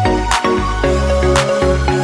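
Background music: an electronic beat with a heavy bass line and a snare hit about once a second.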